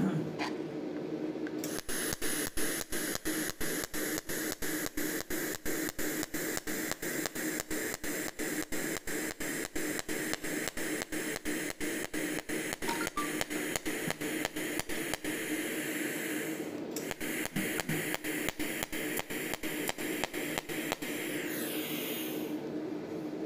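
Stainless-steel precision cold welding machine (SCGCS16) welding a thin stainless sheet: its pulsed arc hisses with a rapid, even ticking rhythm of pulses over a low hum, pausing briefly about two-thirds through and dying away shortly before the end.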